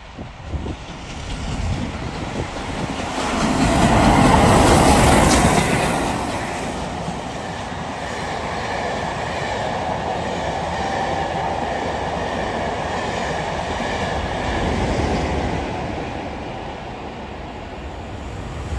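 LNER A4 class three-cylinder Pacific steam locomotive Sir Nigel Gresley passing through at speed with its train of coaches. The noise swells to its loudest about four to six seconds in as the locomotive goes by, then settles into the steady clickety-clack of the carriage wheels over the rail joints, easing off near the end.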